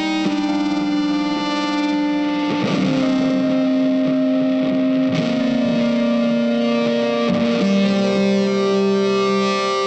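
Background music: distorted electric guitar holding long, sustained notes that change pitch every couple of seconds.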